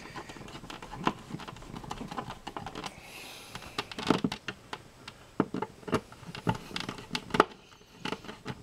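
Screwdriver tightening the mounting screws of a plastic electrical box in drywall: irregular small clicks and knocks of the tool on the screws and box, with a brief scrape about three seconds in.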